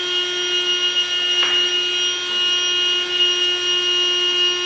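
Ryobi 18V ONE+ cordless battery compressor running under load as it pumps air into an inflatable paddleboard nearly at full pressure: a steady, even-pitched motor hum. There is one brief click about a second and a half in.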